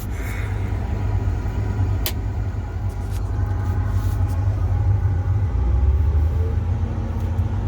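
Combine harvester's engine running steadily with a deep, low rumble, its header and sickle bar switched off. A single sharp click sounds about two seconds in.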